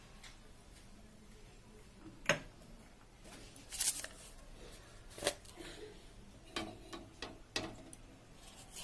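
Kitchen preparation handling sounds: a handful of sharp clicks and knocks spread over several seconds, with a short scraping rustle a little before the middle.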